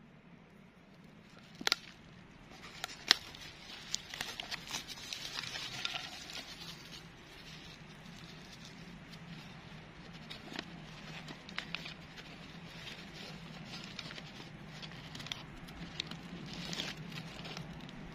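Small wood campfire crackling, with a couple of sharp pops, mixed with the crinkle and rustle of an instant cup noodle's plastic packaging being opened.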